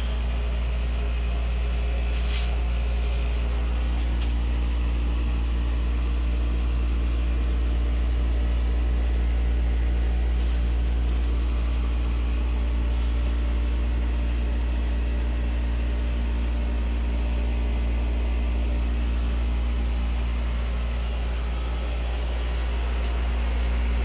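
Air conditioner running: a loud, steady low hum with a few fainter steady tones above it, unchanging throughout.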